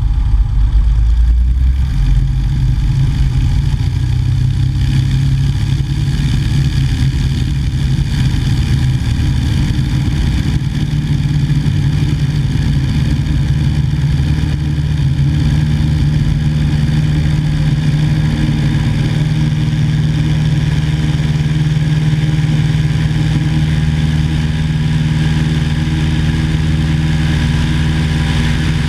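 Continental six-cylinder engine of a 1950 Cessna 170A running steadily, its pitch rising a little about ten seconds in and then holding.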